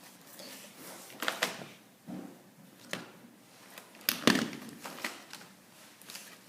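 Handling of a toy remote-control car and its packaging as it is freed from the box: a few sharp knocks and clatters, the loudest about four seconds in, over light rustling.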